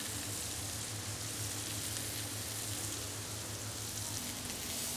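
Beef meatballs (Köttbullar) frying in a pan: a steady, even sizzle.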